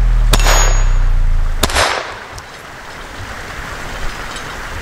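Two shots from an FN 502 Tactical .22 LR pistol, about a second and a half apart, in the first two seconds.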